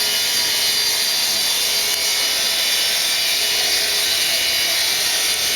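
A steady, even hiss with no distinct strokes or knocks. It is the same noise that runs under the speech before and after.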